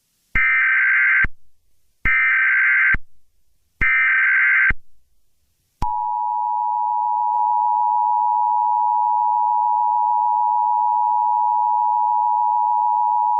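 Emergency Alert System SAME header: three bursts of data tones, each about a second long with short gaps, encoding an Amber Alert. About six seconds in, the steady two-tone EAS attention signal starts and holds.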